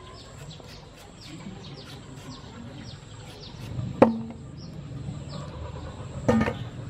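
Peeled mango set down into a stainless steel bowl: a sharp knock with a brief metallic ring about four seconds in, and a second, softer knock with ring near the end as tomatoes go into the bowl. Small birds chirp faintly throughout.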